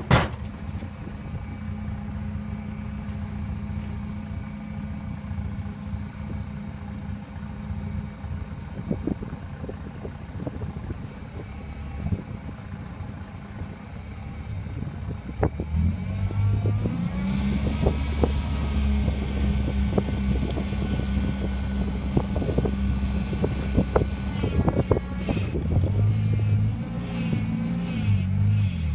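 Engine of a homemade truck-mounted log splitter running steadily, its note rising and getting louder a little past halfway. A rushing hiss follows for several seconds, and scattered knocks and clanks come through, the loudest right at the start.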